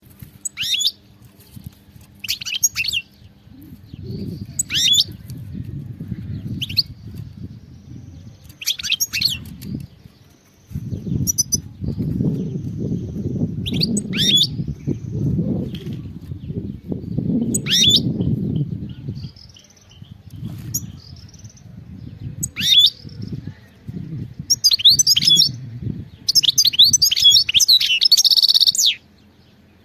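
European goldfinch giving short, sharp falling chirps every second or two, then breaking into a rapid twittering song phrase near the end. A low rumble sits underneath for much of the time.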